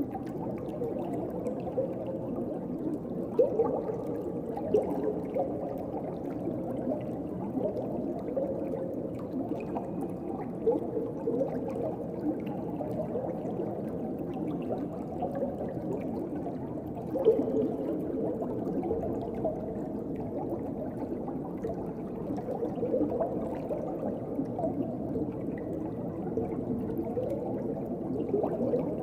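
Underwater ocean ambience: steady muffled water noise with bubbling and gurgling, and a few louder bubble pops.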